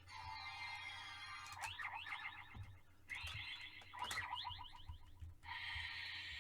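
DX Desire Driver toy belt with the Double Typhoon Raise Buckle inserted, playing its electronic sound effects and music through its small tinny speaker: a falling sweep, then fast warbling alarm-like effects and a held electronic tone near the end.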